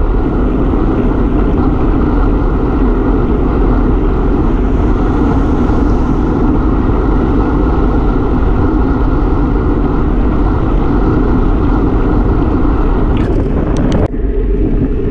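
Loud, steady wind noise buffeting the microphone of a camera mounted on a road bike's handlebars while riding at speed. A few sharp clicks sound near the end.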